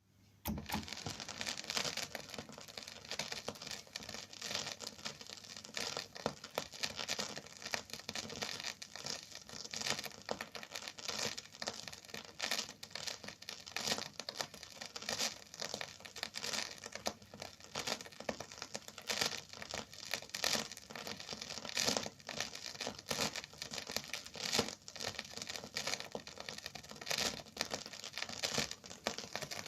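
Phonograph record surface noise: dense, continuous crackling and popping, beginning about half a second in.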